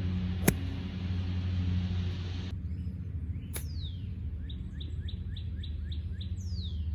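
A single sharp click of a club striking a golf ball about half a second in, over a steady low rumble. Later a bird chirps: falling notes, then a quick run of short chirps, with a fainter click among them.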